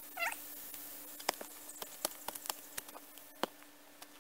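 Irregular sharp clicks and knocks of a shovel working soil and small stones while a footing hole is hand-dug. A brief high chirp comes about a quarter second in.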